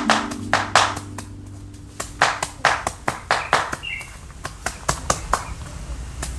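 A quick series of sharp knocks or taps, about four to five a second, that pause for about a second shortly after the start and then carry on.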